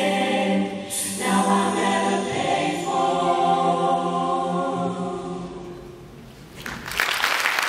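Show choir holding a final sustained chord that slowly fades away. Near the end, audience applause breaks out.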